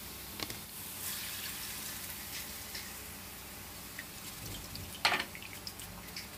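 Hot oil and fried garlic poured from a pan into a metal sieve, splashing and draining into the bowl beneath. About five seconds in, a single sharp knock sounds, metal against metal.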